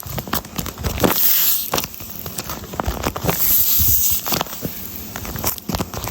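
A handmade paper squishy made of paper and tape being squeezed and handled, giving irregular crinkling and crackling.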